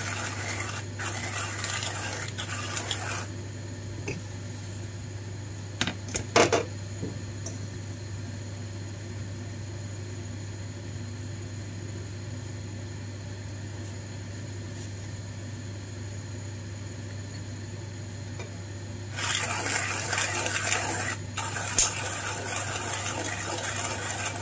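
Hand-cranked coffee grinder crushing beans: a gritty, rasping grind for the first few seconds, then a quieter stretch with a few sharp knocks about six seconds in, and the grinding again from about nineteen seconds on. A steady low hum runs underneath.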